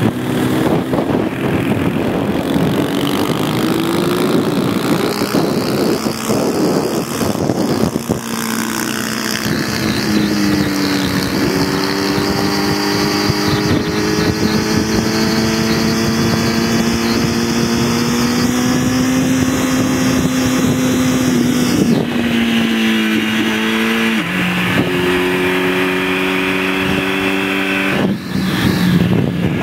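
Kawasaki ZX-10 motorcycle's inline-four engine running at road speed with wind rushing past, its note holding and slowly climbing, then dropping suddenly a few times in the last third as the throttle is eased or gears are changed.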